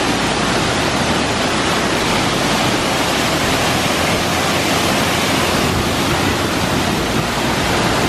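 Waterfall pouring down a rock face in a gorge: a loud, steady rush of falling water.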